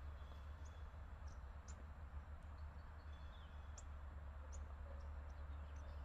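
Quiet open-air ambience: a steady low rumble with faint, scattered high bird chirps.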